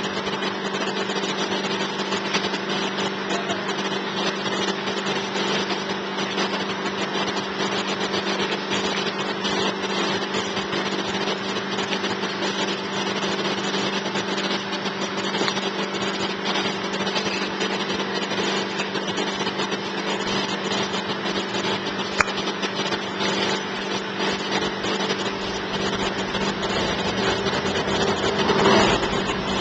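A steady mechanical drone with a constant low hum, as from a small motor running, with one sharp click about 22 seconds in.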